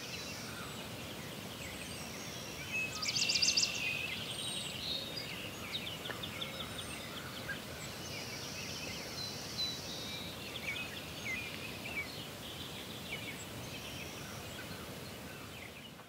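Outdoor bird sounds: small birds chirping and warbling high over a steady background hiss, with a brief rapid trill about three seconds in.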